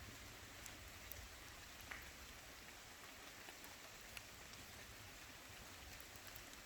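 Near silence: a faint, steady outdoor hiss with a couple of faint ticks.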